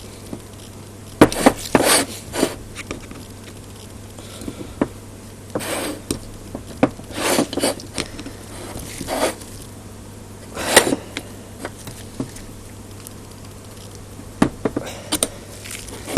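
Metal parts of an antenna rotator being worked apart with hand tools: irregular clicks, knocks and short scrapes, separated by pauses, over a steady low hum.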